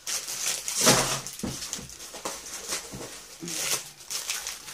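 Plastic packaging of craft supplies crinkling and rustling as it is handled, in several uneven bursts.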